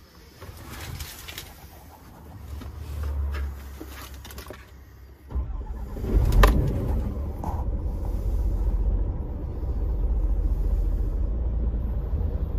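Scania P420 truck's six-cylinder diesel engine starting about five seconds in, catching with a loud burst, then idling steadily, heard from inside the cab.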